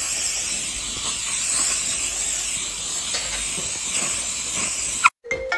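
Aerosol spray can hissing in one long continuous spray that cuts off suddenly about five seconds in.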